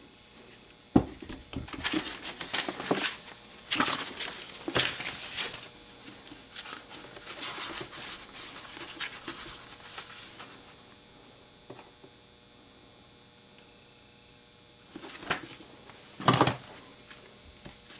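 An old cast-iron rail car retainer valve set down on a wooden workbench with a sharp knock about a second in, followed by clattering and rustling as it and other things on the bench are handled. A further burst of rustling comes near the end.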